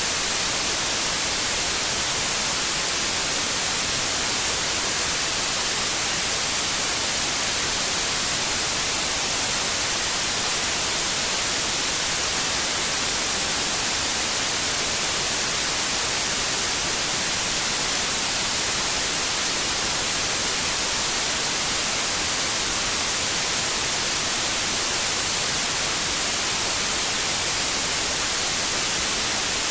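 Steady white noise: an even, unchanging hiss, brightest in the treble, with no rhythm, tones or breaks.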